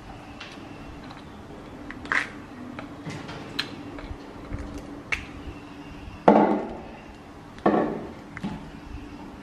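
Scattered clicks and knocks over a steady low hum, with two louder knocks a little over a second apart in the second half, each fading out quickly.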